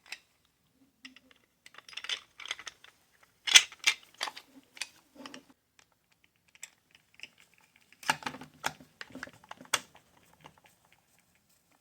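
Light clicks, taps and rattles of small screws and jigsaw housing parts being handled and fitted by hand during reassembly, in two bursts with scattered ticks between.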